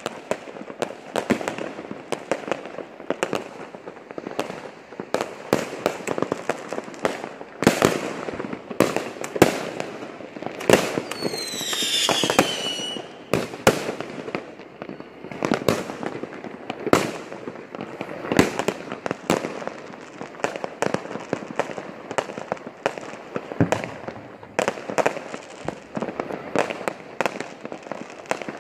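Fireworks going off one after another, a steady run of bangs and crackles, with one falling whistle lasting about two seconds near the middle.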